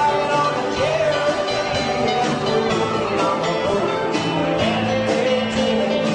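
A band playing a country-rock song: sung vocals over plucked guitar and a steady drum beat.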